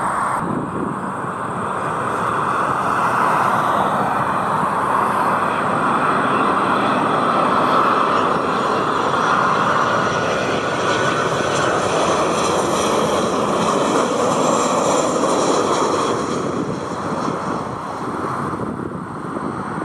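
Boeing 737 jet airliner passing with its engines running: a steady jet noise that swells to its loudest around the middle and eases off near the end, with a high fan whine sliding in pitch in the second half.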